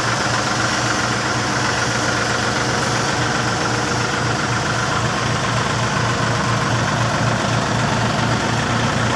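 Backhoe engine idling steadily, with an even low throb.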